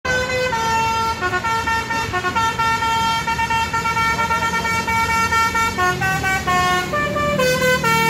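Multi-tone "telolet basuri" bus horn playing a tune: a run of sustained, high-pitched notes that step up and down in pitch, with a faster run of notes near the end.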